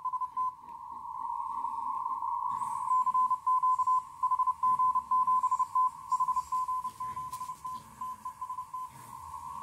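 Morse code (CW) from an amateur station on the 20-metre band, received on an RTL-SDR with a magnetic loop antenna: a beeping tone of about 1 kHz keyed fast in dots and dashes, about 30 words per minute, sending 'CQ HG7T test'. From about half a second in until about two and a half seconds in, the keying gives way to a steady hiss at the same pitch.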